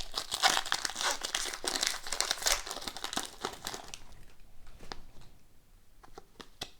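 Plastic wrapper of a hockey card pack being torn open and crinkled for about four seconds. After that come only a few soft clicks and taps as the cards are handled.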